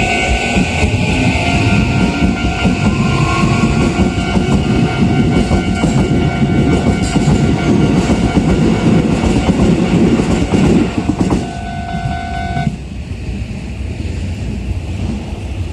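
Toei 5500 series electric train pulling away over a level crossing: its inverter motor whine rises in pitch as it gathers speed, with loud wheel rumble and clatter on the rails that falls away about 11 seconds in. The crossing's warning bell rings steadily over it and cuts off suddenly about 13 seconds in.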